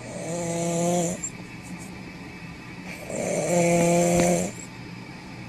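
A person snoring: two loud snores about three seconds apart, each a buzz held at one pitch with a breathy hiss, the second one longer.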